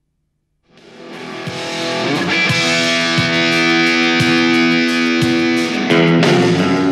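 Background music fading in after a moment of silence: guitar-led track with sustained chords and a light beat about once a second.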